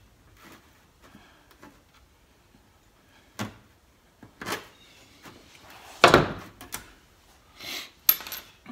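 Aviation snips cutting relief notches into a sheet of steel: a few quiet clips and knocks, then a loud thump about six seconds in and a sharp metallic clink near the end.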